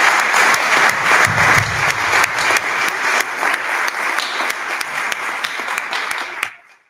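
Audience applause, many hands clapping, slowly dying down and then cut off abruptly near the end.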